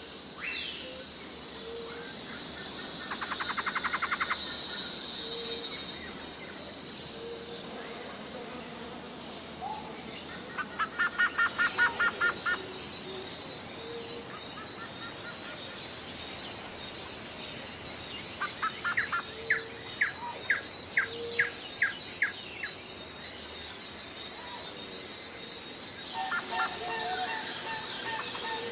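Several birds calling in bursts of quick repeated notes, with scattered single chirps, over a steady high insect hum.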